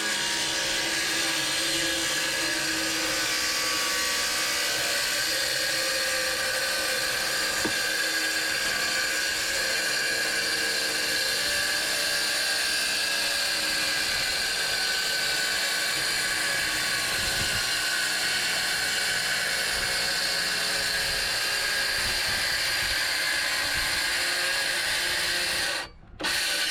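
A power tool running continuously with a steady high whine while working wood. It cuts out briefly near the end, then runs again for a moment.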